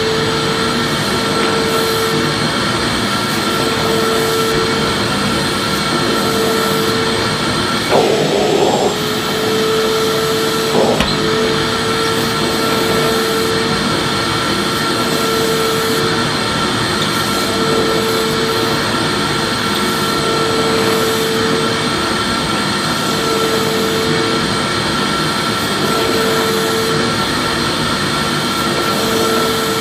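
Vacuum cleaner running steadily: a dense hiss with a steady high whine and a lower hum that swells and fades about every two seconds. A short clattering burst comes about eight seconds in, and a briefer one about eleven seconds in.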